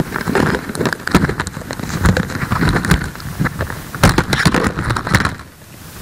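A loud, dense run of irregular crackles and knocks over a low noise. It cuts off sharply about five and a half seconds in, leaving a quieter steady hiss.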